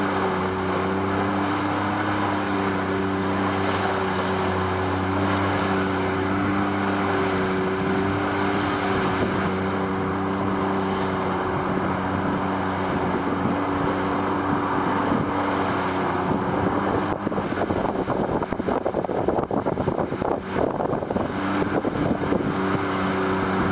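A small fishing boat's motor running steadily under way, its hum mixed with wind buffeting the microphone and the rush of water. About two-thirds of the way through, the engine tone fades for a few seconds under the wind and water noise, then comes back near the end.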